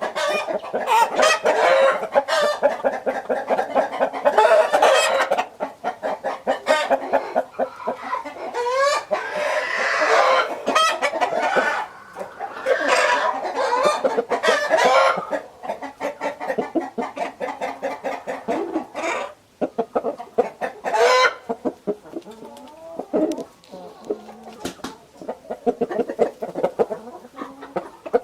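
Chickens clucking and cackling continuously, with roosters crowing now and then among them.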